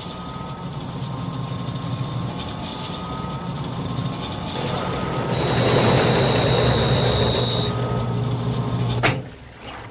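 Brastemp automatic washing machine on its spin cycle, running with a steady hum, while the cleaning solution pumped out of its drain hose is sprayed back into the drum through a nozzle. The rush of spray swells about halfway through, then everything cuts off abruptly near the end.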